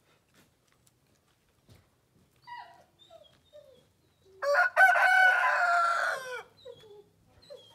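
Rooster crowing once, a loud crow lasting about two seconds that starts a little past halfway through. A few short clucks from the chickens come before it.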